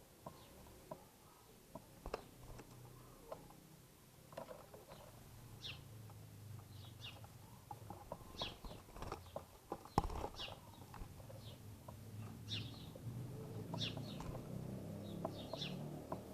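Small birds chirping with short, high calls at a feeding spot scattered with cracked corn, with scattered sharp clicks and one loud knock about ten seconds in. A low rumble grows louder in the second half.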